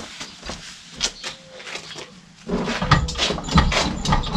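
A few light footsteps, then from about halfway in a run of irregular knocks and thumps over a low rumble as the rear of a BMW E46 saloon is pushed down and rocked on its rear suspension, whose shock absorbers are worn out.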